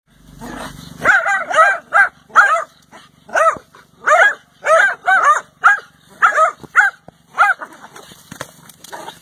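Dogs barking at a snake they have found, a quick run of about fifteen loud barks that dies down about a second and a half before the end.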